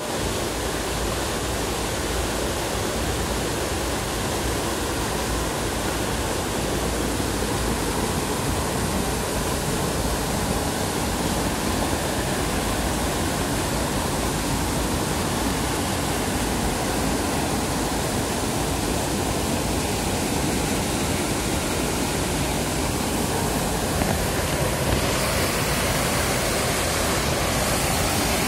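Fast mountain river rushing steadily, a constant full-range wash of water. About 25 seconds in it grows a little brighter and louder as water pours over a low weir.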